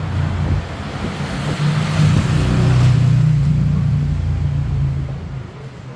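A road vehicle's engine rumbling as it passes, building to its loudest about halfway through and fading near the end.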